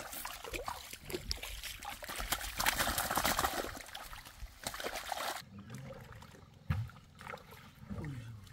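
Water splashing and sloshing as a fine-mesh fishing net full of fish is gathered and lifted in shallow water. It is busiest in the first half, then drops off sharply about five seconds in to a few quieter splashes.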